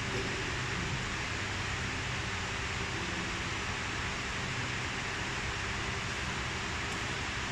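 Steady even noise of an electric fan running, with a faint low hum underneath.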